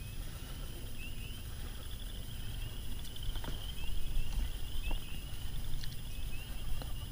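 A steady chorus of high, short rising chirps from small animals calling around a pond, repeating many times a second, over a low rumble.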